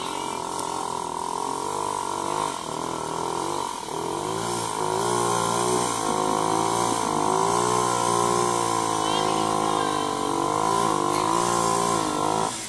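ATV engine revving up and down over and over, its pitch rising and falling in uneven waves, then dropping away near the end.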